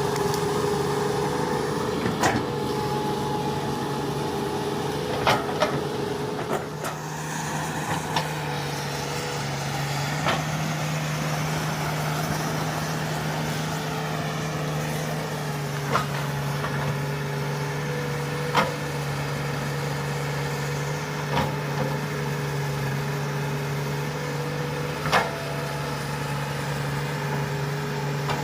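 Komatsu hydraulic excavator's diesel engine running steadily under work, its pitch shifting a little a few times, with sharp knocks every few seconds.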